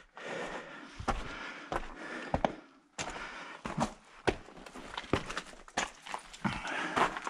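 Hiking footsteps on rocky canyon ground: crunching and scuffing steps on gravel and rock, roughly one step every two-thirds of a second.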